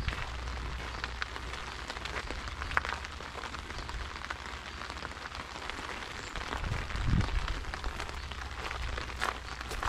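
Steady rain, a dense patter of many small drops. A low rumble swells briefly about seven seconds in.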